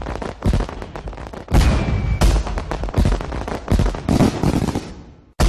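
Fireworks: a rapid, crackling string of pops mixed with several deep booms. It breaks off briefly near the end and then starts again.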